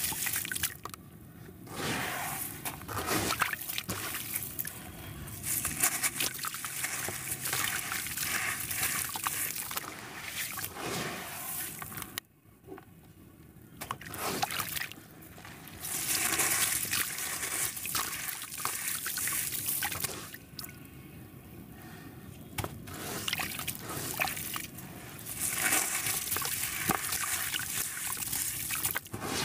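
Hands crumbling wet sand-and-cement chunks in a tub of water: gritty crunching and crackling mixed with sloshing and dripping water. It comes in bursts, with a short near-pause about twelve seconds in.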